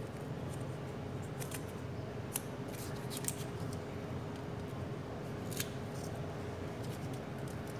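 Enamelled copper winding wire clicking and rustling as a coil is pushed by hand into the insulated slots of a gate-motor stator: a few sharp, irregular clicks over a steady low background hum.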